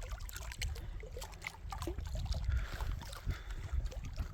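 Lake water lapping and trickling against the rocks at the shoreline, with irregular small splashes over a low rumble.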